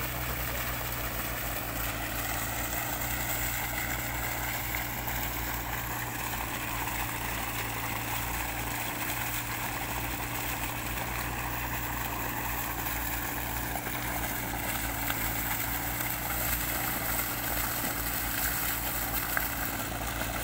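Mitsubishi diesel engine driving a sand-suction pump, running steadily, with sand-laden water gushing from the discharge pipe.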